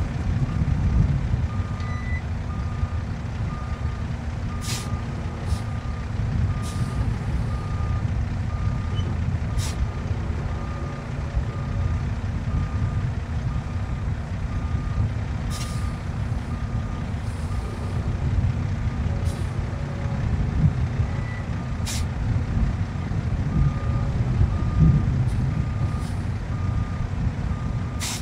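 Diesel engine of an International tandem-axle hydroseeding truck running at a low, steady rumble while its backup alarm beeps about once a second. A few brief sharp noises break in now and then.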